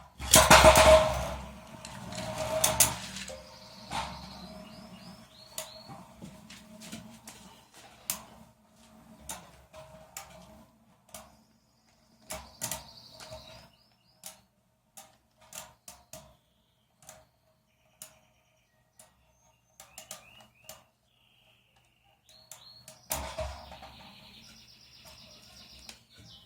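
Beyblade spinning tops launched with a loud rip, then whirring steadily in the arena while they clack against each other again and again; another loud scraping burst comes near the end. Birds chirp in the background.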